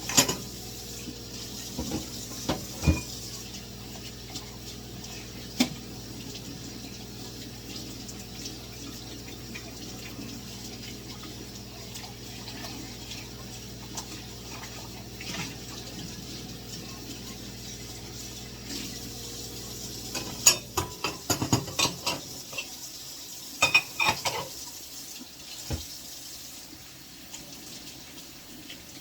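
Water running from a sink tap while dishes and cutlery are handled, with occasional knocks early on and a run of clinking and clattering about three quarters of the way through. A low steady hum cuts off shortly before the clatter.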